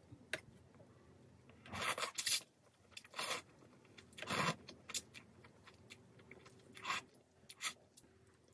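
Janchi-guksu, thin wheat noodles in broth, eaten close to the microphone: about six short slurping and chewing sounds, each under a second long.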